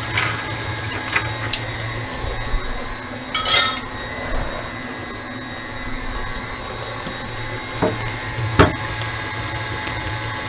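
Stand mixer running steadily while cheesecake batter finishes blending, with a spatula knocking and clinking against the mixing bowl a few times. The loudest knock is about three and a half seconds in, and another comes near eight and a half seconds.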